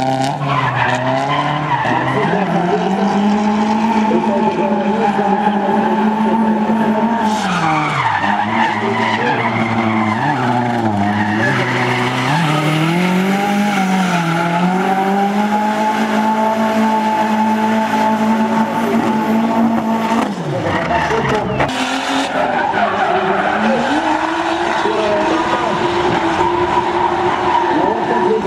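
Drift cars' engines held at high revs while the tyres squeal and skid through sideways slides. The engine pitch sags and climbs back several times, with a sharper drop about three-quarters of the way through.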